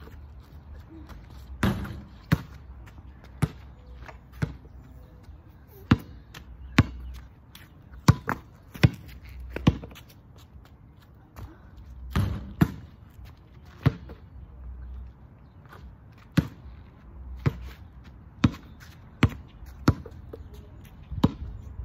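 Basketball bouncing on asphalt as it is dribbled: sharp single bounces at an uneven pace, roughly one every second.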